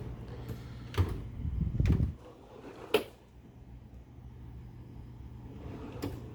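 Tool box being handled: a sharp clack, a second of low rumbling scrape, then another sharp clack about two seconds later, with a few light clicks near the end.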